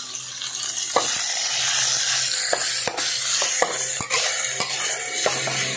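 Pork frying and sizzling in a metal wok while a metal spatula stirs it, scraping and clinking against the pan several times.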